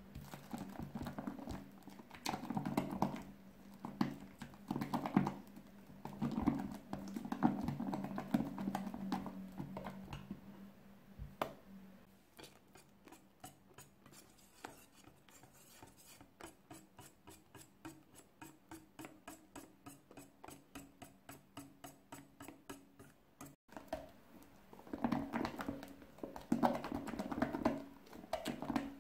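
A wire balloon whisk mixing soft meringue into egg-yolk batter in a glass bowl, with wet scraping and squishing at first, then the wires ticking against the glass about three times a second. Near the end a spatula scrapes meringue out of a glass measuring jug.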